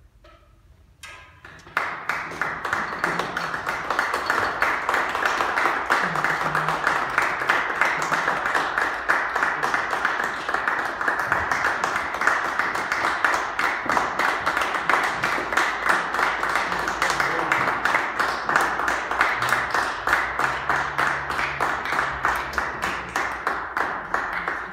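Audience applause, beginning about two seconds in after a brief quiet and then going on steadily as dense clapping.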